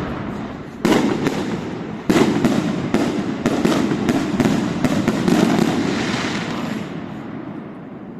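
Aerial fireworks bursting: two loud bangs in the first two seconds, then a rapid string of bursts and crackling, dying away near the end.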